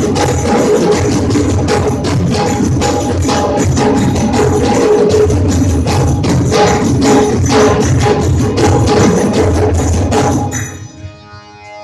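A folk percussion ensemble plays loudly together: a large double-headed drum beaten with sticks, barrel hand drums and metal-shelled drums, with steady high tones running through the beat. About ten and a half seconds in the drumming stops abruptly, leaving a quieter sustained pitched instrument.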